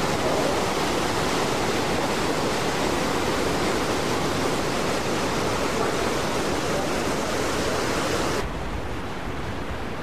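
Steady rushing noise of a large waterfall, the Iskanderdarya falls dropping about 43 m. About eight seconds in it suddenly becomes quieter and duller.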